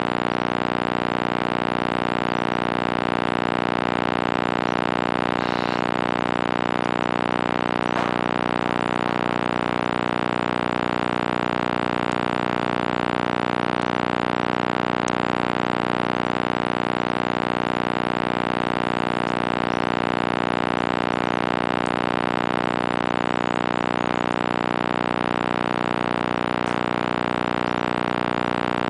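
A troop of mantled howler monkeys howling in chorus: a loud, unbroken roar that swells and eases slightly every few seconds.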